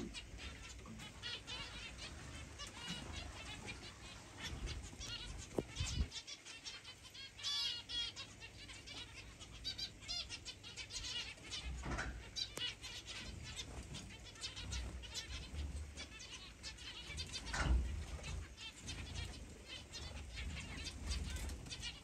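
A mixed flock of aviary finches and other small cage birds chirping and calling continuously in many short overlapping calls, with a few low thumps now and then.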